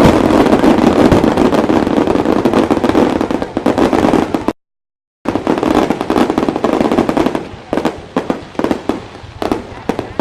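Fireworks display: a dense, continuous barrage of crackling bangs that cuts out completely for under a second near the middle, then resumes as sparser, separate bangs.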